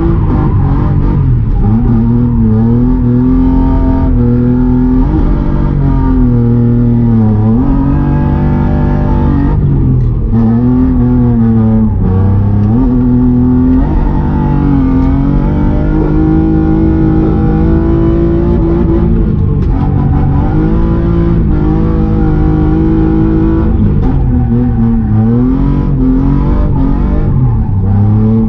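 BMW M50B25 straight-six with an ISR blast pipe exhaust, revving up and falling back again and again at high load as the car drifts.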